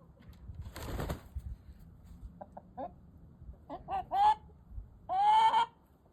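A hen clucking in agitation, in short calls that build to a loud, drawn-out squawk near the end, with a short noisy flurry of wings about a second in.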